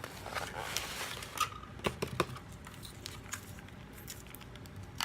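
Takeout food packaging being handled: scattered soft clicks and short rustles, busiest in the first two seconds or so, then sparser.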